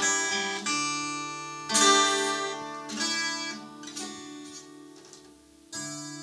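Twelve-string acoustic guitar strummed: a few chords struck in the first three seconds, then left to ring and fade, with one softer strum near the end.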